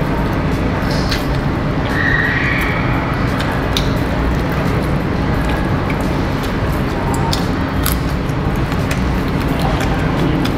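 Someone chewing and tearing at a fried chicken leg, with scattered small crisp clicks over a steady background din.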